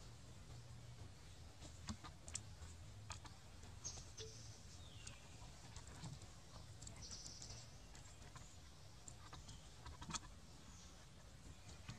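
Faint, near-silent ambience: scattered soft clicks every second or so, a few brief high chirps about four and seven seconds in, over a low steady hum.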